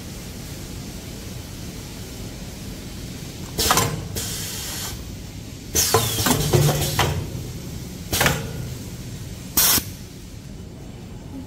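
Four short hissing bursts, the third the longest, from the pneumatic bagging unit of a hand towel packing machine, over a steady machine hum.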